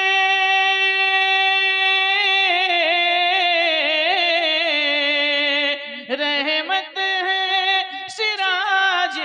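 A man's voice singing a naat into a microphone. He holds one long steady note for about two seconds, then carries it into a wavering, ornamented run, and from about six seconds in breaks into shorter sung phrases.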